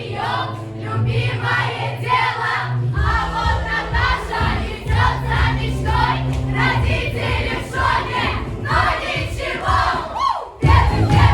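A group of voices singing together over recorded music with a steady bass line. Just before the end the sound dips briefly after a falling sweep, then the music comes back louder.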